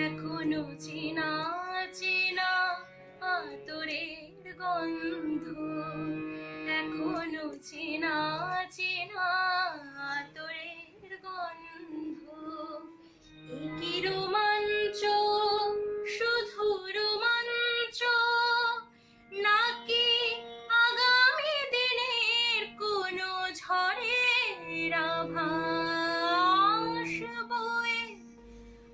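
A girl singing a slow melodic song with wavering, ornamented pitch over a steady sustained instrumental accompaniment.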